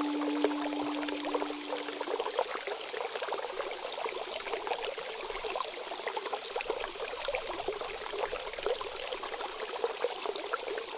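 Running water trickling and splashing steadily, with the last of a bell's ringing tone dying away about two seconds in.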